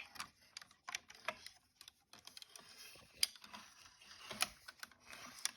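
Scattered small plastic clicks and knocks, a handful a second and uneven, from the Buzz Lightyear talking action figure being handled and its parts worked.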